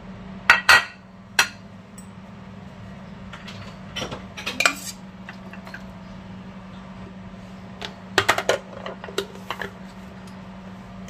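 Kitchenware clinking and scraping: a glass baking dish set down with a couple of sharp clinks, then a metal serving spoon scraping and knocking in a stainless steel pot as leftover food is scooped out, and a further clatter of pot lid and utensils later on. A steady low hum runs underneath.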